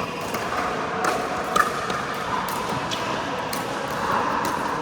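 Pickleball paddles hitting the plastic ball: sharp pops at irregular intervals, about five in a few seconds, the loudest about a second and a half in.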